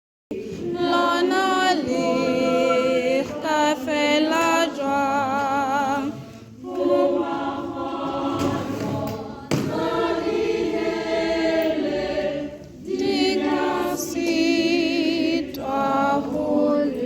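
A choir singing unaccompanied, several voices with vibrato, in long phrases broken by short breaths about six seconds in and again near twelve and a half seconds.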